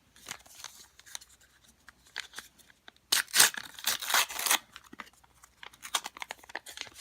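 A trading card pack's wrapper being torn open and crinkled by hand. The loudest tearing comes about three seconds in and lasts a second and a half, followed by scattered crinkling and rustling.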